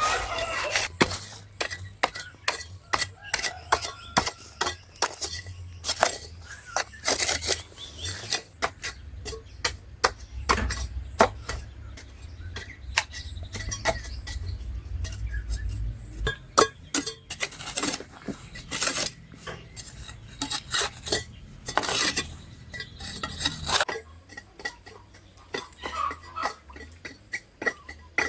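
Irregular clinking and knocking of hard objects, several a second, like handled dishes or metal utensils, over a low rumble that stops about 24 seconds in.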